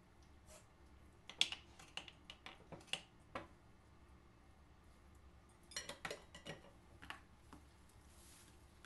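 Faint, scattered clicks and taps of a metal spoon against a small cup and a mixing bowl as sugar is scooped out and stirred into wet egg-and-banana batter. They come in two clusters, the second starting about six seconds in.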